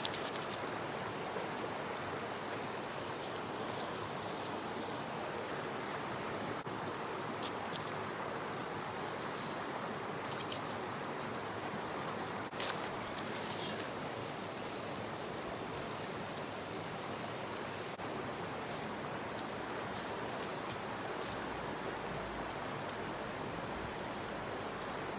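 A river running steadily, with a few scattered clicks over it, the sharpest about halfway through.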